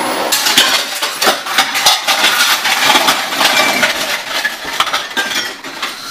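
Dishes and cutlery clattering and clinking loudly at a kitchen sink, many sharp clanks in quick succession, easing off near the end.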